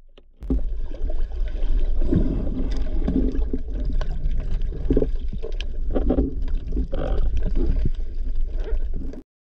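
Muffled water sloshing and bubbling heard by a camera underwater near the surface, over a steady deep rumble, with irregular surges and a few short knocks. It starts about half a second in and cuts off abruptly just before the end.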